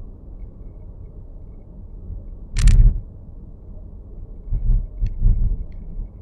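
Low road rumble inside a Nissan X-Trail e-POWER cabin, broken about two and a half seconds in by one loud, sharp click or crack and, near the end, by a few dull knocks with faint ticks: the abnormal noise from the dashboard.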